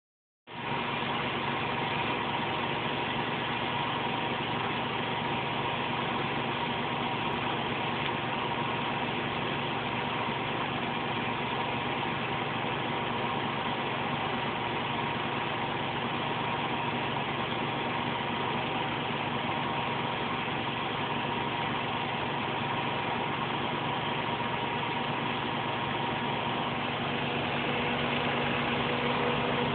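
Zanker Profimat PF6650 washing machine in its final spin, the drum turning at high speed with a steady rushing whine. Near the end the hum deepens and gets slightly louder.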